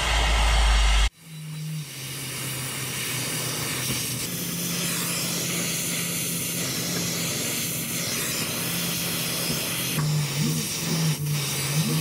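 Oxy-acetylene brazing torch flame hissing steadily on a copper refrigerant line joint, with a steady low hum underneath. A louder low rumble in the first second cuts off abruptly.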